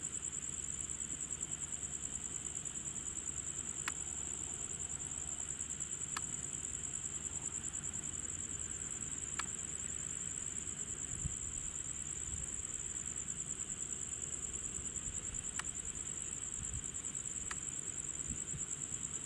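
Steady high-pitched insect chorus, a fast pulsing buzz held without a break, over a faint low rumble, with a few faint sharp clicks scattered through it.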